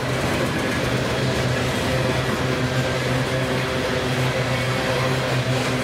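A diesel freight locomotive running, giving a loud, steady engine drone.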